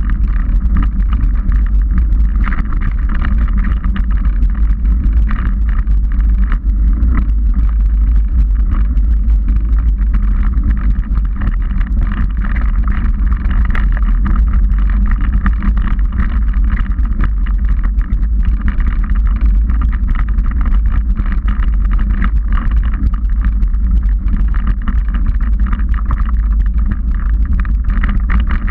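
Trek 29er mountain bike riding a dirt trail: a steady low rumble of the tyres rolling over the ground, with a constant clatter of small rattles and knocks from the bike.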